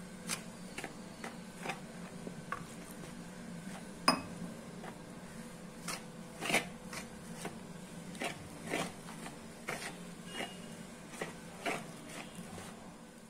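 Steel ladle stirring gram flour and rice flour with water in a plastic bowl, mixing boondi batter: irregular clicks and scrapes as it knocks against the bowl, the loudest about four seconds in. A low steady hum runs underneath.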